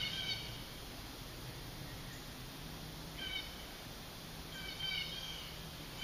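Short animal calls, brief pitched notes repeated a handful of times with pauses between, over a faint steady outdoor background.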